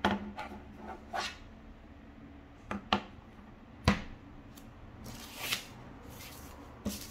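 A Huawei MediaPad T5 tablet being handled on a wooden table: a series of light clicks and knocks as it is turned over and set down, the sharpest knock about four seconds in. A couple of brief rustling sounds follow near the end.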